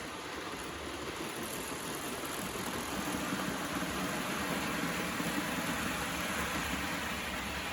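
Märklin model train running along the track, a steady motor hum with wheel rumble that grows louder in the middle and eases off again, as if passing close by.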